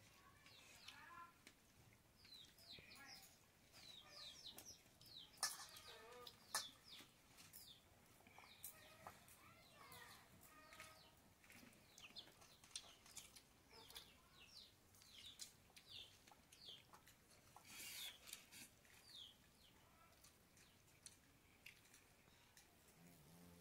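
Chickens clucking and chirping faintly, with many short high falling chirps scattered throughout and a few sharp clicks, the loudest about five and a half and six and a half seconds in.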